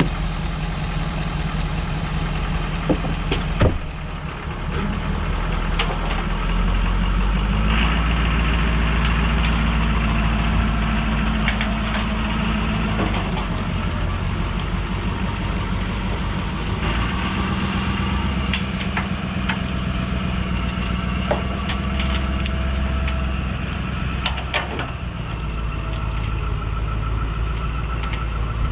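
A 6.7-litre diesel pickup engine idling and pulling at low throttle, its note stepping up a few times as it is driven slowly. A few sharp knocks come about three to four seconds in and again near the end.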